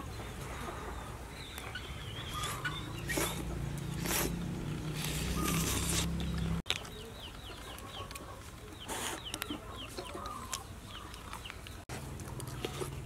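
Chickens clucking, with a few short hissy bursts of noise in between.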